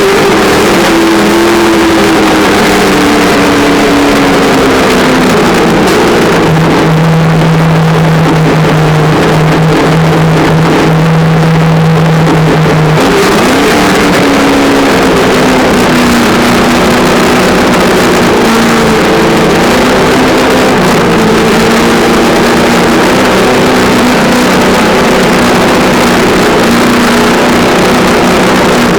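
Traxxas On-Board Audio speaker on an electric Traxxas Slash RC truck playing a loud simulated engine sound. The engine note rises and falls with the throttle, and holds one steady low note from about six to thirteen seconds in.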